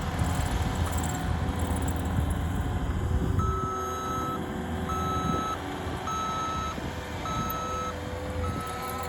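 Diesel heavy equipment running, with its reversing alarm starting about three seconds in and beeping steadily, roughly once a second, as the machine backs up.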